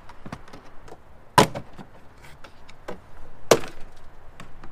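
Plastic retaining clips of a Chevy Silverado's rear door trim panel popping loose as the panel is pulled off by hand. There are two loud sharp pops about two seconds apart, with smaller clicks and knocks between.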